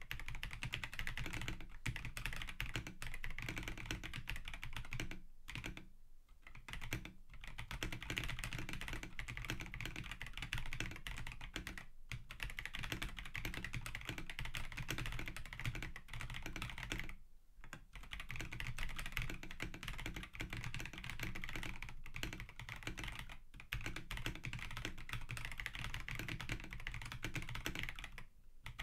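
Stock Akko PC75B Plus Air mechanical keyboard, with Akko CS Air linear switches, PBT keycaps and a polycarbonate plate, typed on quickly and continuously. There are brief pauses about six seconds in and again about seventeen seconds in.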